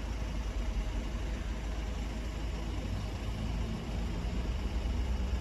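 Steady road-traffic noise: vehicle engines idling and running, with a low rumble.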